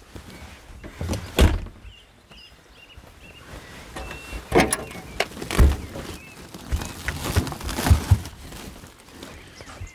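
An outside storage hatch on a Unimog camper box being opened and gear handled inside it: a series of separate knocks and thumps, about five in all, spread over several seconds.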